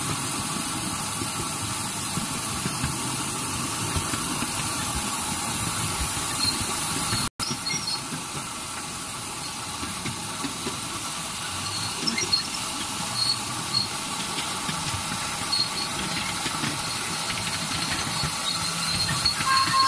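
Ride-on miniature park train running along its narrow-gauge track: a steady rumble and clatter of small wheels on rail. Faint wheel squeals come in over the last several seconds.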